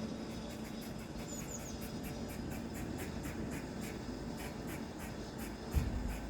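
A squirrel calling from a tree: a rapid, even series of short, sharp chirping barks, about three to four a second. A few quick bird chirps come in briefly about a second and a half in, and a low rumble near the end.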